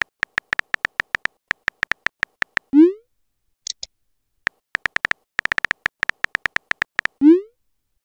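Phone keyboard typing sound effect: a quick run of short tapping clicks, each with a small tone, then a loud rising 'bloop' message-sent sound about three seconds in, followed by a brief high chirp. A second run of taps ends in another sent bloop near the end.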